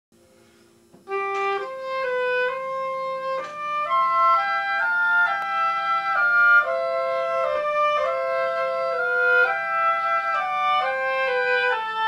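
Two oboes playing a duet passage together, two lines of notes moving one above the other, starting about a second in. The playing is smooth and connected, with the tonguing disguised so the articulation never stands out.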